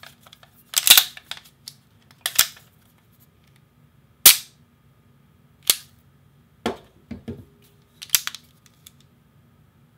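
Sharp metallic clicks of SIG Sauer P226 pistols being worked by hand: slides racked, hammers cocked and dropped in dry-fire to feel the single-action trigger. About seven clicks come a second or so apart, the sharpest near the middle.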